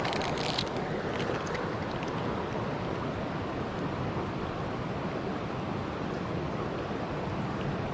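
Steady rush of flowing river water. A few short clicks or rustles come in the first second or two.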